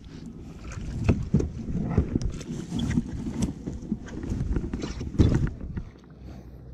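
Wind buffeting the microphone and water splashing against a kayak hull, with irregular knocks and splashes, the sharpest about a second in and again about five seconds in.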